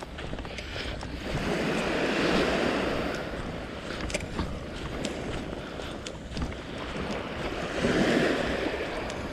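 Small waves washing up on a sandy beach, swelling louder twice as they break. Wind rumbles on the microphone underneath.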